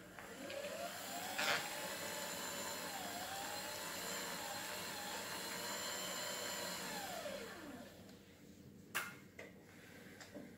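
Electric motor whining as it spins up, running about seven seconds with a slightly wavering pitch, then winding down. About nine seconds in there is a single sharp tap.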